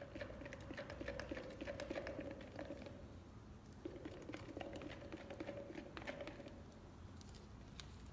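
A thin clear plastic epoxy mixing cup is flexed and squeezed in gloved hands, giving rapid crackling clicks. There is a short pause about three seconds in, and the clicks thin out near the end.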